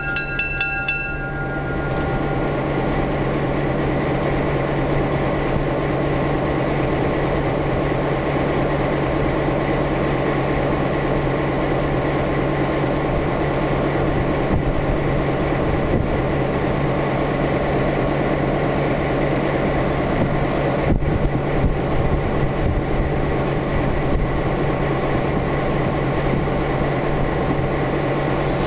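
GMD FP-9 diesel locomotive idling steadily, its EMD 567 engine giving a constant low hum. A high squeal carried over from before stops about a second in.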